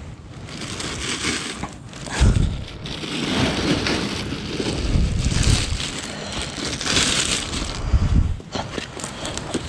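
Plastic bags crinkling and rustling as a bag is rummaged through by hand, with a few dull thumps and the crouching person's clothing brushing close to the microphone.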